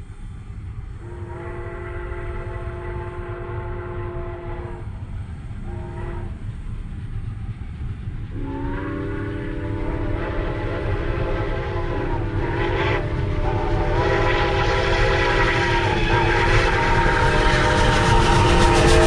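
Steam locomotive chime whistles blowing the grade-crossing signal, long, long, short, long, with the last long blast held and a second whistle from the other locomotive joining it. Under the whistles the low rumble of the doubleheaded steam train grows steadily louder as it approaches.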